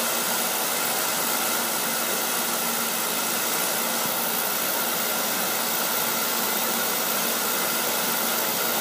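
Oil burner firing: a steady roar of burner flame and blower fan, with a faint even hum through it.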